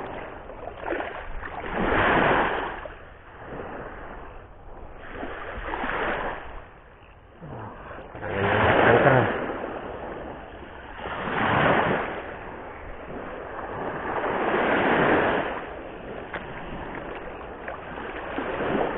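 Sea waves washing in on a rocky shore, swelling and falling away in surges every few seconds.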